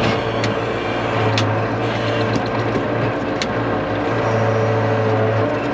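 Farm loader tractor engine running steadily while its bucket scrapes down snow and frozen lumps, with a few sharp clicks or clanks scattered through.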